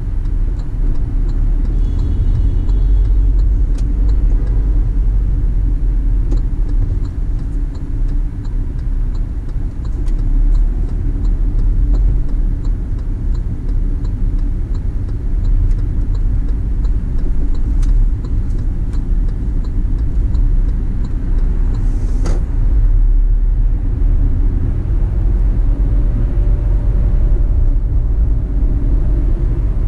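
Car being driven: a steady low rumble of engine and tyres on the road, with one sharp knock about two-thirds of the way through.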